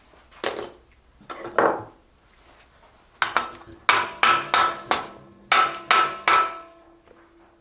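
A hammer striking metal: a few blows in the first two seconds, then a run of about eight quicker blows, each leaving a short metallic ring.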